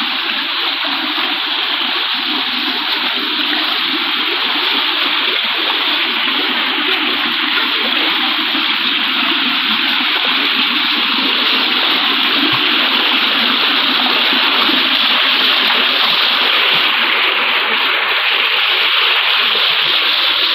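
Shallow rocky mountain stream rushing steadily over stones and small cascades, with splashing as people wade through the water.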